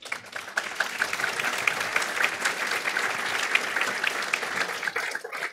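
Audience applauding: many hands clapping together, starting suddenly and tailing off near the end.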